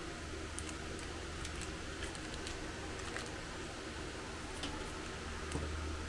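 Room tone: a steady low hum and hiss, with faint, light clicks scattered irregularly through it.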